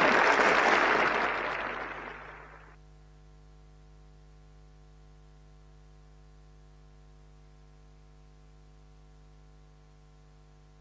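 Hand clapping from a small group, fading away over the first two to three seconds. After that comes a faint, steady electrical hum.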